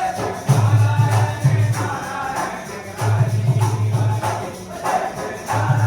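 Music with a rhythmic low bass pulse.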